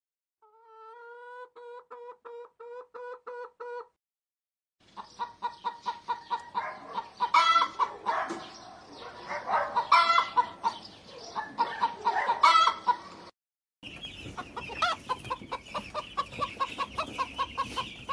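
Chickens calling in several short stretches: first a quick run of repeated pitched calls, then louder clucking calls. After a brief break near the end, a brooder full of broiler chicks keeps up a steady high-pitched peeping.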